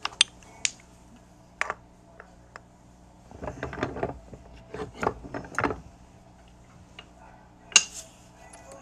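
Steel coin-ring folding dies and tools being handled and set in place: a few sharp metallic clicks, a stretch of knocking and rubbing in the middle, and one loud click near the end.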